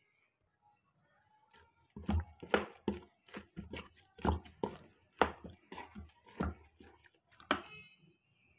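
Spoon stirring chunks of raw mutton heart and liver with whole onions and tomato in a steel pressure-cooker pot. It gives an irregular run of wet knocks and scrapes against the pot, about three a second, starting about two seconds in and stopping just before the end.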